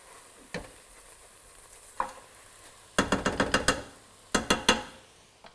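Stew vegetables sizzling faintly in a stainless steel stockpot as a wooden spoon scrapes the browned bits off the bottom. Two quick runs of sharp knocks, the spoon against the pot, are the loudest part, about three seconds in and again just after four.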